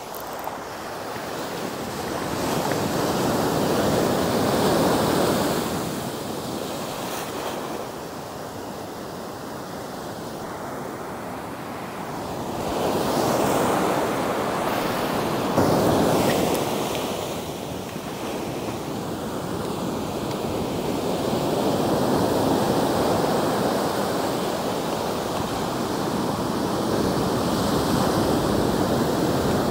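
Ocean surf breaking and washing up the sand close by, swelling and ebbing three times as successive waves come in, with some wind noise on the microphone.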